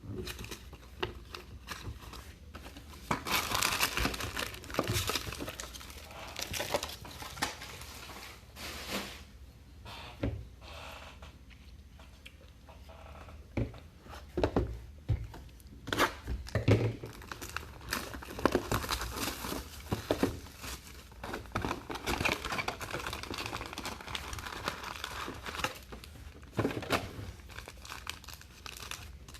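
Plastic trading-card pack wrappers being torn open and crumpled, an irregular crinkling that comes in busier spells, with a few sharp knocks now and then.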